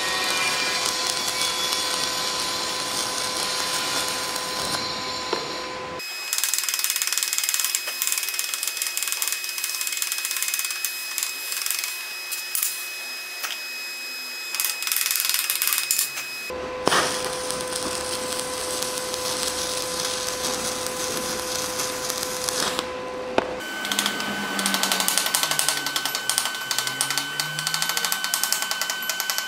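Stick (shielded metal arc) welding on cast iron with a nickel-iron electrode from an inverter welder: a steady crackling, sizzling arc with a thin high whine. It is heard in several cut-together stretches.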